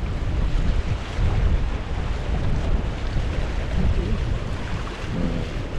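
Strong wind buffeting the microphone: a steady, heavy low rumble, with a faint voice briefly in the background near the end.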